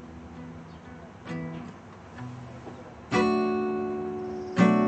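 Acoustic guitar strummed chords, each strum left ringing and fading away. A few light strums at first, then two louder strums about three seconds in and near the end.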